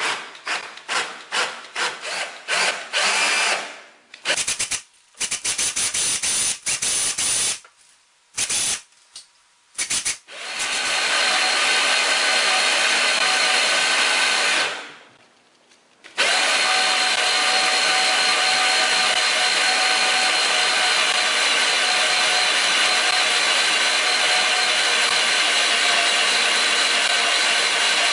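Cordless drill/driver turning the worm-gear winding shaft of a Wayne Dalton TorqueMaster garage door spring clockwise, winding tension into the spring. It starts as a string of short bursts, then comes in several brief runs, then runs steadily for a few seconds, stops briefly and runs steadily again until near the end.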